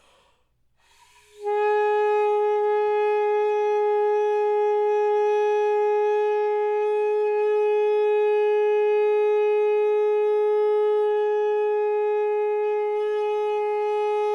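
A quick breath in, then an alto saxophone sounds a long tone: one steady note starting about a second and a half in and held evenly without wavering. It is a practice long tone of about ten seconds, played with steady air.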